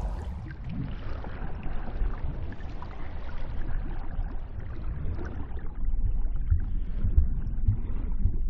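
Muffled underwater ambience: a low, steady rumble of water heard as if submerged, with soft, irregular low thumps in the second half.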